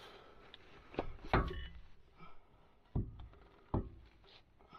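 Four knocks of a wrench on the bolt hardware of a camper's leaf-spring hanger and axle, the second one the loudest.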